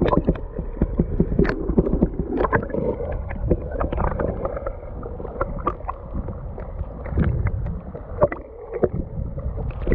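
Fast river current heard underwater through a submerged action camera: a muffled, low rushing rumble with many small, sharp clicks and ticks scattered through it.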